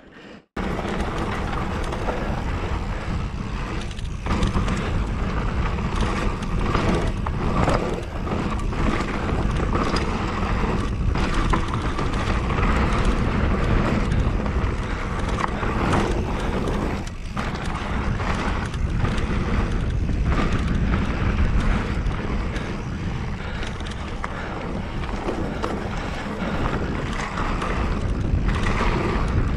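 Mountain bike ridden fast down a dirt trail: wind buffeting the microphone over the steady rumble of tyres on the ground, with frequent knocks and rattles as the bike hits bumps.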